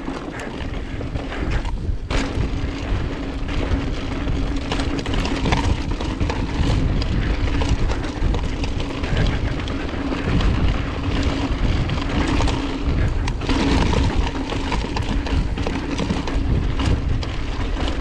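Wind buffeting the camera microphone and tyres rolling fast over a dry, rocky dirt trail on a descending enduro mountain bike, with knocks and rattles of the bike over rough ground and a steady hum under it.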